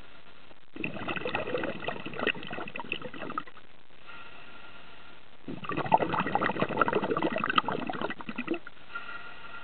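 A scuba diver's exhaled bubbles bubbling and crackling in two bursts of about three seconds each, one exhalation after another, with a steady faint hiss between them.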